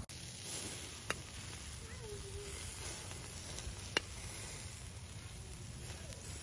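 Beef mishkaki skewers sizzling steadily on a charcoal grill, basted with leftover oil and marinade. Two sharp clicks, about a second in and again about four seconds in.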